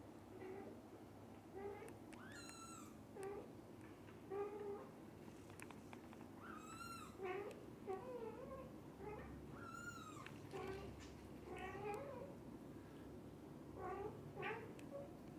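Nursing kittens mewing: many short, high-pitched mews throughout, with three louder, longer ones spread through that rise and fall in pitch.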